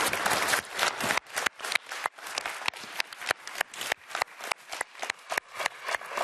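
Applause: hands clapping, dense at first, then thinning after about half a second into distinct, separate claps several times a second.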